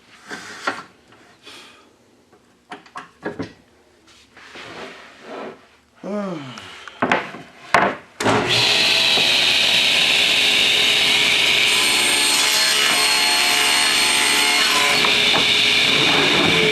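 Scattered knocks and clatter of wood being handled, then about eight seconds in a power tool starts abruptly and runs loudly and steadily on wood.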